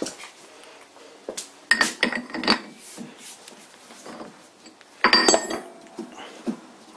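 Steel-on-steel clinks and rattles as a three-jaw lathe chuck is loosened with a steel bar in its jaws and unscrewed from the threaded spindle nose. The ringing clinks come in two bunches, about two seconds in and about five seconds in.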